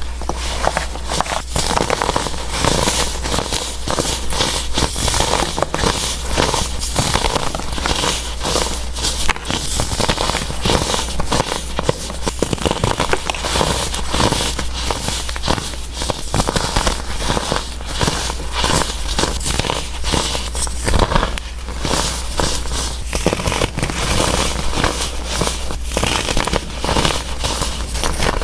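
Pressed baking soda blocks being crushed: a dense, unbroken run of small crunchy cracks and crumbling with no pauses, over a steady low hum.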